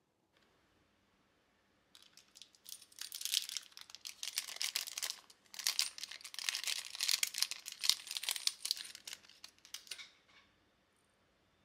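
Thin plastic bag crinkling as hands rummage in it and pull out metal jump rings. A busy run of rapid crackles starts about two seconds in, pauses briefly near the middle, and stops near the end.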